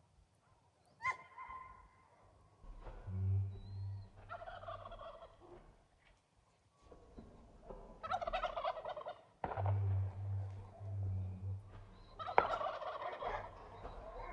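A strange animal-like call: bouts of rapid, warbling, gobble-like calling, repeated several times with short pauses between them.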